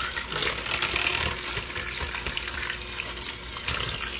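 Electric hand mixer running on low speed, its beaters churning and shredding cooked chicken in a stainless steel bowl: a steady motor whir with a wet, splashy churning noise.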